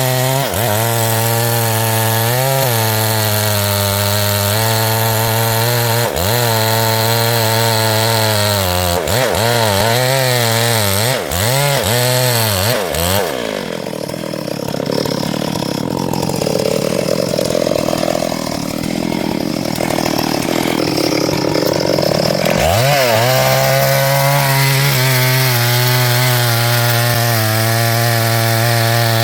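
Small two-stroke chainsaw running at high revs while cutting wood, its pitch wavering in the cut. About 13 seconds in the engine speed drops for roughly nine seconds, then rises back to full revs.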